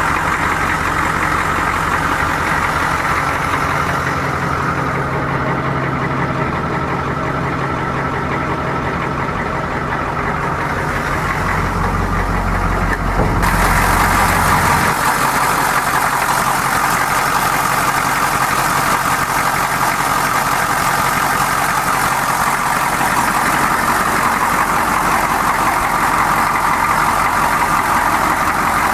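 The 6.2-litre Detroit Diesel V8 of a 1984 M1008 Chevrolet pickup idling steadily, with a fast, even pulse. About halfway through, the sound loses some of its low rumble and gains more hiss.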